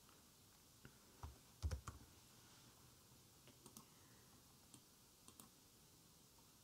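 Faint, scattered clicks of a computer mouse, a few louder knocks in the first two seconds and lighter ticks later on.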